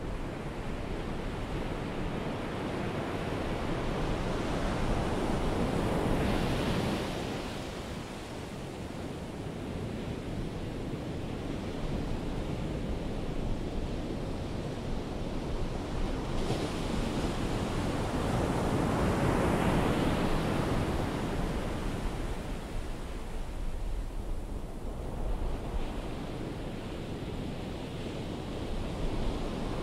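Ocean surf: waves breaking and washing up the beach as a continuous rush that swells and fades, loudest twice.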